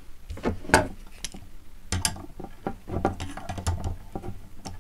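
Pliers gripping and turning a nut on a bolt to snug it up against a metal bracket: a run of irregular metallic clicks and scrapes.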